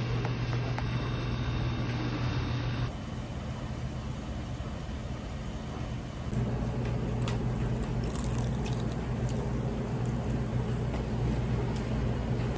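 Steady low machine hum of a room, with a few faint clicks about seven to nine seconds in. The background changes abruptly twice, where the recording is cut.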